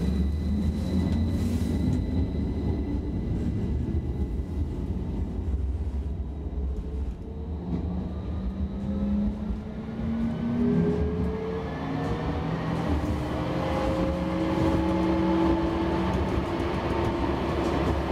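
A32 tram heard from inside the car, pulling away and gathering speed. The running gear gives a steady low rumble, and from about a third of the way in the traction motors' whine climbs steadily in pitch as the tram accelerates.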